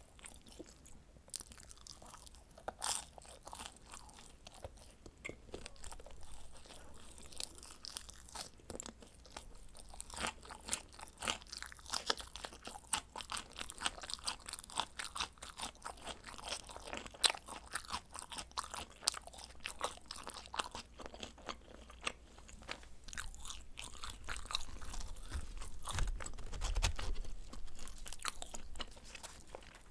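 A person chewing and biting pizza close to the microphone, with many small irregular crunches from the crust.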